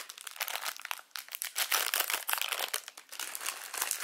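Foil biscuit wrapper crinkling and crackling irregularly as it is opened and handled, with a brief pause about a second in.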